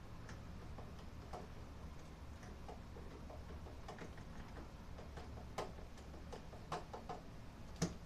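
Irregular light clicks and ticks of a screwdriver driving screws into a refrigerator water inlet valve's mounting bracket, with a few sharper clicks near the end, over a faint steady low hum.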